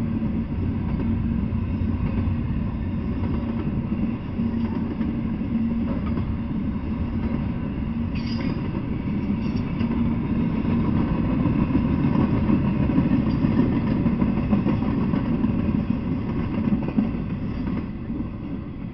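Double-stack intermodal freight train's container well cars rolling past, a steady rumble of steel wheels on rail with a brief high-pitched squeal about eight seconds in. The rumble fades near the end as the last car passes.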